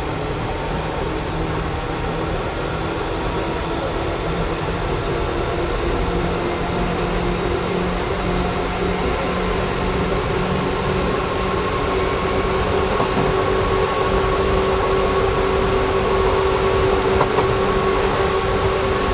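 Running noise inside a Seibu 2000 series electric train car, with the armature-chopper-controlled motors under way. A steady rumble carries a few held whining tones that creep up slightly in pitch, and the whole sound grows gradually louder.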